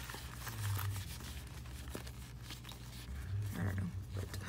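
Faint rustling and light handling noises as a pencil case shaped like a milk carton is turned over in the hands, with a steady low hum beneath.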